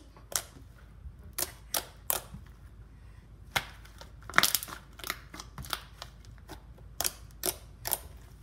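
Homemade slime being kneaded and pressed by hand, giving irregular sharp clicks and pops, the loudest about four and a half seconds in.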